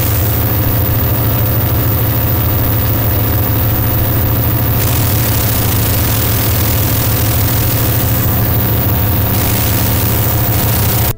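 Experimental industrial ambient noise music: a loud, dense wash of noise over a steady low droning hum, with unchanging tones layered above it.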